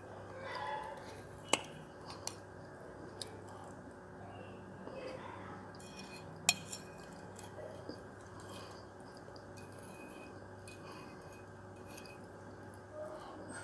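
A spoon scraping and clicking against a stemmed dessert glass while scooping up soft, wet clay mix. There are a few sharp clinks, the loudest about a second and a half in and again about six and a half seconds in.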